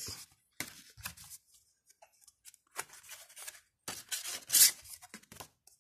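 Paper CD booklet being handled and its pages flipped, rustling in several short bursts, the loudest about three quarters of the way through.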